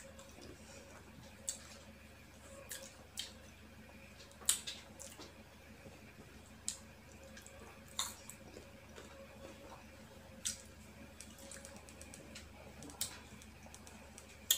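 Close-up chewing of crunchy, sour unripe green mango: scattered short wet crunches and mouth clicks, a dozen or so, irregularly spaced, over a faint steady hum.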